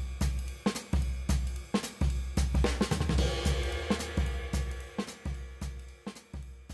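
Background music: a drum-kit beat with cymbals and hi-hat over a deep bass, fading out near the end.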